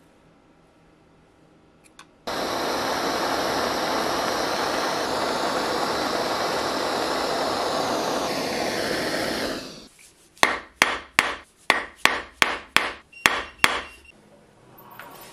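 A jeweller's gas torch flame hisses steadily for about seven seconds while heating a small piece of metal to an orange glow on a soldering block. It cuts off and is followed by about ten sharp metal-on-steel hammer blows on a steel bench block, about three a second.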